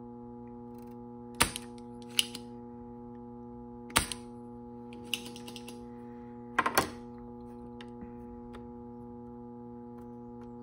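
Plunger-type desoldering pump snapping and clicking as it is cocked and fired to pull solder off a capacitor's joints. A handful of sharp clicks come a second or two apart, with a quick double click about two-thirds of the way through, over a steady electrical hum.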